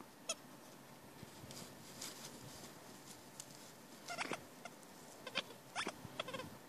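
A dog's rubber squeaky ball squeaking as a Pembroke Welsh corgi chews it. There is one short squeak just after the start, then a run of squeaks in the last few seconds, with some rustling of the shrub he lies in between them.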